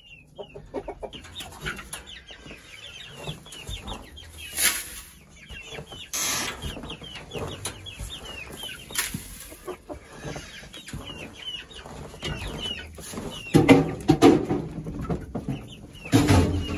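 Half-grown chickens peeping and clucking nonstop, many short high falling chirps. A few louder knocks and scuffs break in, the loudest near the end.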